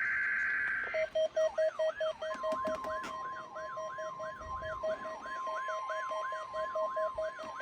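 The last burst of an Emergency Alert System digital SAME header, a harsh buzzing data tone, ends about a second in. Overlapping EAS attention signals from several radios follow: a rapidly pulsing beep, a warbling tone sweeping up and down about three times a second, and, from about two seconds in, a steady NOAA Weather Radio alert tone. Together they mark the start of a Required Monthly Test alert.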